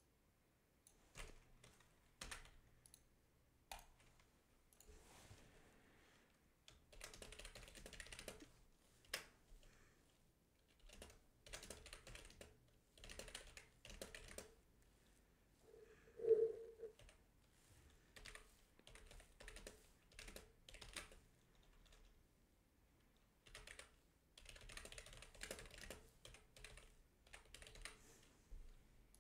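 Faint typing on a computer keyboard, short bursts of key clicks with pauses between them. One brief, louder low sound comes just past the middle.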